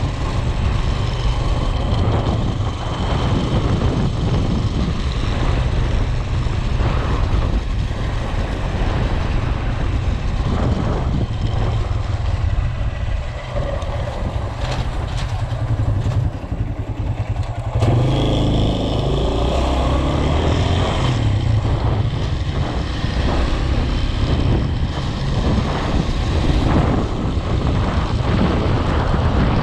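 Motor vehicle on the move, recorded onboard: a steady low rumble of engine and road, with wind buffeting the microphone. About eighteen seconds in the engine note comes up more clearly.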